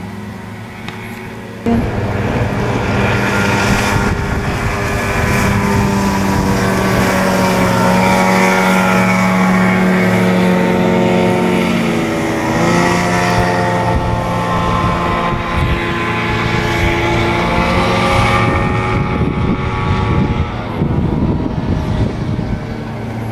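40 hp Johnson two-stroke outboard motor running at speed. Its pitch dips briefly about halfway through and then climbs back.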